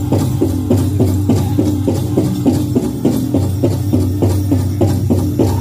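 Powwow drum group playing a chicken dance song: the big drum is struck in a fast, even beat, about four strikes a second, with the singers' voices holding notes underneath.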